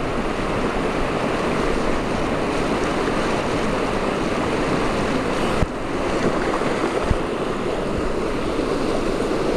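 Whitewater river rapids rushing and churning around an inflatable raft, a steady noise of moving water close to the microphone, with a couple of short knocks about halfway through.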